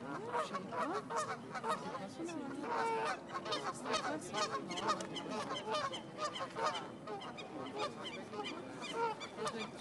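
A flock of Canada geese honking, many short calls overlapping without a break.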